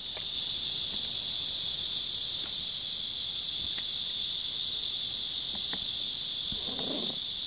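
Dense chorus of cicadas: a high, hissing insect drone that swells up and then holds steady.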